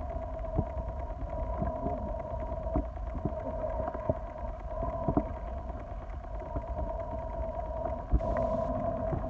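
Underwater ambience picked up by a phone submerged while snorkeling: a muffled low rumble with a steady two-note hum and scattered small clicks and pops. A sharper thump comes about eight seconds in, followed by a brief hiss.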